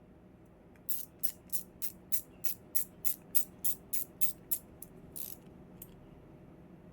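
Balisong handles swinging on their pivots after a bushing and washer refit, giving a quick series of sharp, evenly spaced clicks, about three a second, for about four seconds, then a softer rustle and a few faint ticks. The free, regular swing shows the repaired bushings and thinner washers no longer bind.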